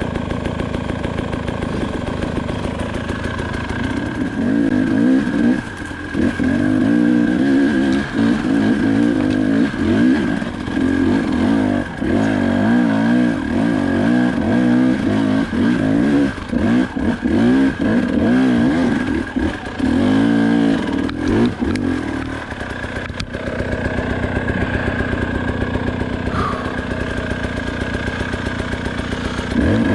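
KTM 300 XC-W two-stroke enduro motorcycle engine being ridden off-road, blipped and revved up and down over and over in short bursts, settling to a steadier lower run for a few seconds near the end before revving again.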